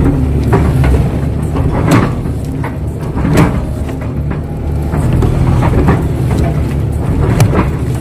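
Kato HD512E crawler excavator's diesel engine running steadily under load, with about ten irregular knocks and clunks as the machine works, typical of the bucket packing down mud on a field dike.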